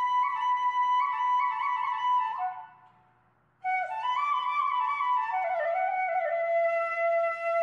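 Background instrumental music with a single melody line. It fades out about two and a half seconds in and stops for about a second, then starts again suddenly.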